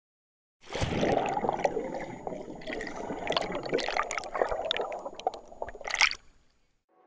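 Water splashing and gurgling, full of small sharp drips and splashes. It starts about half a second in and ends with a louder splash about a second before the end.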